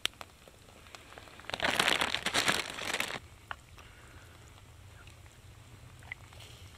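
A plastic zip-top bag crinkling as it is handled, for about a second and a half, then stopping abruptly. A couple of faint clicks follow.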